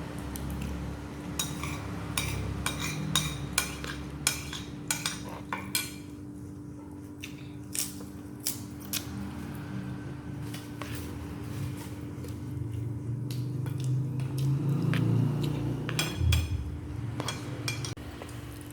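Metal cutlery clinking and scraping against dishes, in quick clusters of sharp taps, over a steady low hum.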